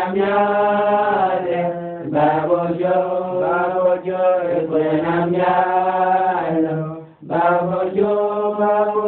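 Chanted singing in long held phrases, with a short break about seven seconds in.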